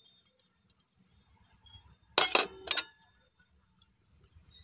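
Stainless steel bowls clinking against each other and the steel plate: two sharp, ringing metal clinks about half a second apart, a little past the middle.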